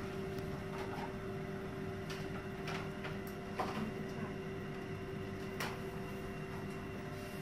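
Steady electrical hum from equipment in an X-ray procedure room, with a few faint clicks from handling spread through.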